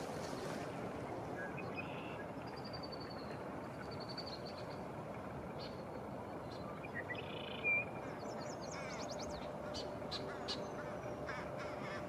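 Wind rushing steadily through conifer branches, with a few faint high chirps from small birds.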